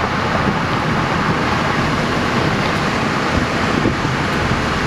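Strong wind blowing hard across the microphone: a steady, loud rush of noise with a low rumble underneath.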